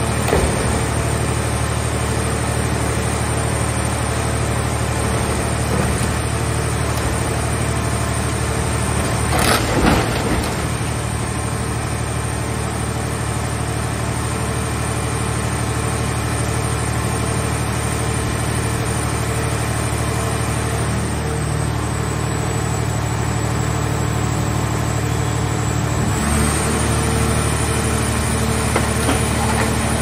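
Hydraulic car shell baler running with a steady, engine-like hum from its power unit as its lids press a scrapped car body. A short crunch comes about ten seconds in. Near the end the hum changes pitch and gets a little louder.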